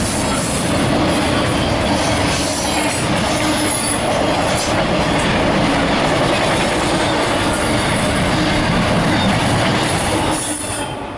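Norfolk Southern intermodal freight train's well cars and flat cars rolling past, with steady wheel-on-rail noise and a brief high squeal about four seconds in. The noise falls away near the end as the last car goes by.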